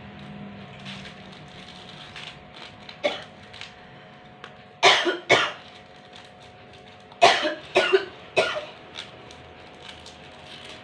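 A woman coughing in short fits: one cough about three seconds in, two close together about five seconds in, and a run of three between seven and eight and a half seconds.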